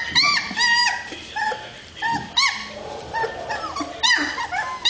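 German Shepherd puppies whimpering and yelping: short, high-pitched cries that rise and fall, coming in quick succession about every half second, several of them overlapping.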